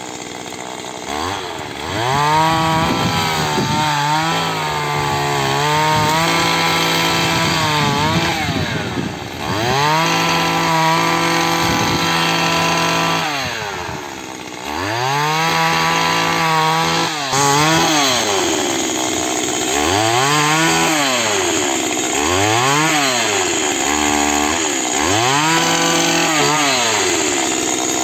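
Stihl petrol pole pruner's engine repeatedly revved up to cutting speed, held there for a few seconds at a time and dropped back between cuts. In the second half it goes in shorter throttle blips that rise and fall.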